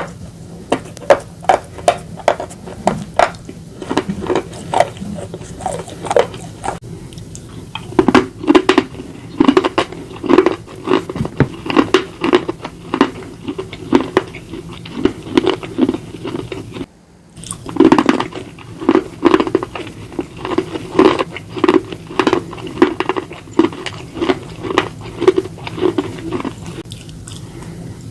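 Slate pencils and a slate bar being bitten and chewed close to the microphone, a long run of crisp crunches several a second, with a brief break near the middle. A low steady hum runs under the first half and stops at the break.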